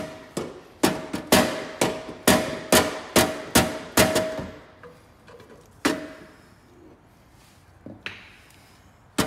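Rubber mallet beating a chrome Harley-Davidson slip-on muffler onto its header pipe: a fast run of about ten blows, roughly two a second, each with a brief metallic ring from the muffler. After that come a few weaker, spaced blows.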